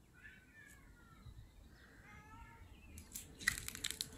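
A cat meowing faintly a few times, short cries that bend in pitch, followed by a second or so of crackling and scraping near the end as the cat scrambles over the wall top into the foliage.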